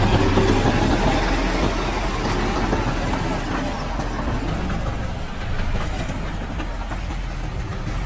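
Heavy diesel engine of earthmoving equipment running steadily, a little louder in the first second.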